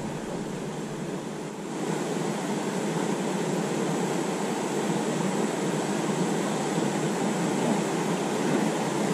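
Steady rushing of a shallow, rocky river's current, growing a little louder about two seconds in.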